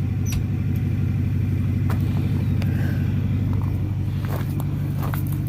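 Truck engine idling steadily, with a few faint clicks.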